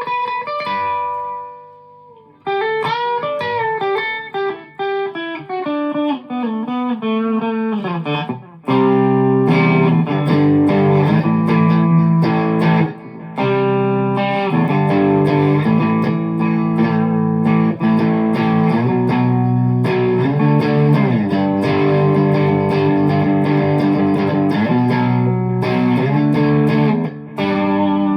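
Chapman ML1 Modern Standard electric guitar being played through an amp: melodic single-note lines with string bends, a brief pause, then about nine seconds in a louder, denser passage of chugging, distorted chords and riffs.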